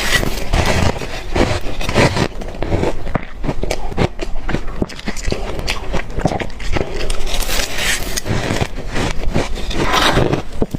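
Close-up chewing of hard crushed freezer ice: dense, irregular crunching and squeaky cracking as the ice is bitten and ground between the teeth.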